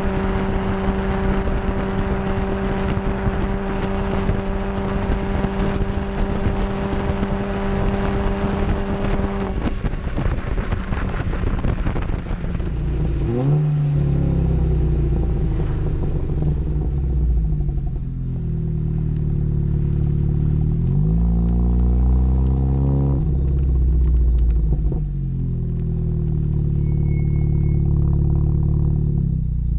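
Seat Leon Cupra's turbocharged 2.0-litre four-cylinder running through a Milltek Sport exhaust, loud, with road and wind noise. For about the first ten seconds it holds a steady drone at constant speed. After that the wind noise falls away and the engine note repeatedly rises and falls as the car slows and accelerates again.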